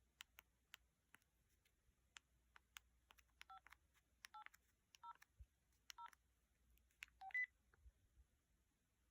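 LG LX 1200 flip phone's keypad being pressed: faint clicks and about five short two-tone keypad beeps, between three and seven and a half seconds in, the last one higher-pitched.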